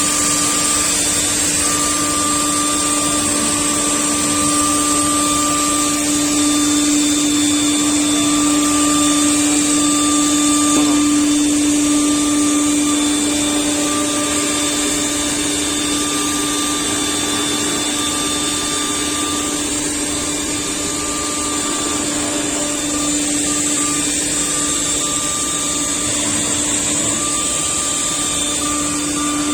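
CNC panel-cutting router running steadily while it machines a board: a steady whine over a constant rushing noise, with little change in level.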